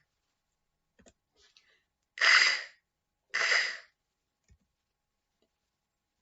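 A woman twice making the unvoiced /k/ phoneme as a short breathy puff, about a second apart, after a few faint clicks.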